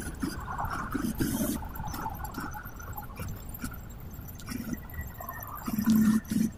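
Inside a city bus at highway speed: a steady rumble of engine and road noise, with the body and fittings rattling and clicking throughout. A few louder low surges come in, the strongest near the end.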